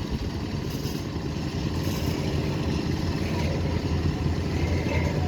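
Heavy construction machine's engine running with a steady low drone, growing a little louder after about two seconds.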